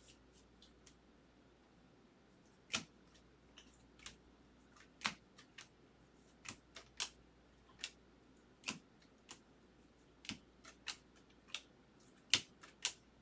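Baseball trading cards being flipped through one by one, each card giving a short sharp click of card stock at irregular intervals, coming more often in the second half.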